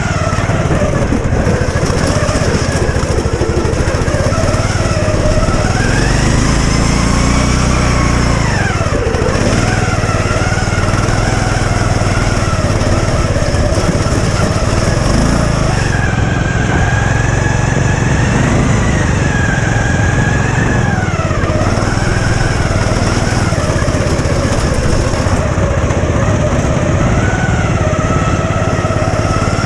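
Riding lawn mower engine running loudly and continuously as the mower is driven, its pitch rising and falling with the throttle and dropping sharply about nine seconds in and again about twenty-one seconds in.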